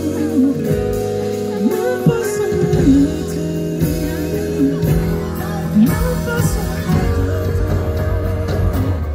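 A live pop song: a male voice singing a slow, gliding melody over guitar and sustained chords.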